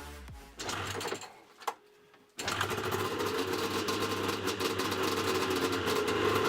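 Music fades out, and after a short near-silent gap about two seconds in, a Yamaha Mountain Max 700 snowmobile's three-cylinder two-stroke engine, fitted with SLP triple pipes, starts being heard abruptly and runs at a steady idle.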